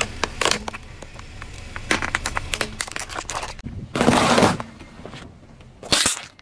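A car tyre rolling over and crushing objects: a run of sharp cracks and crackles as a hollow plastic toy mask gives way under the tyre, then a loud crunch about four seconds in as a pile of round chocolate sweets is squashed, and a shorter burst near the end as another object is flattened and squirts.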